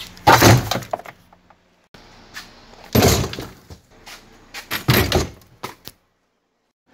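Removed truck engine parts, among them the composite intake manifold, dropped into a plastic bucket: three loud clattering thunks, then a few lighter knocks near the end.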